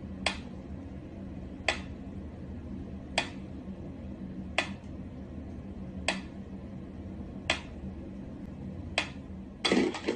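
Mechanical pendulum metronome ticking slowly and evenly, one sharp tick about every second and a half, over a steady low hum. Near the end a louder, brief clatter breaks in, followed by a couple of lighter clicks.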